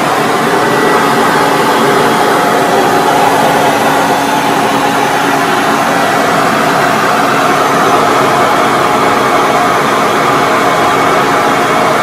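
Hoover Commercial Dual Purpose upright vacuum cleaner running steadily at full power: a loud, fairly low hum rather than a high-pitched scream, reading about 88 to 89 decibels close up.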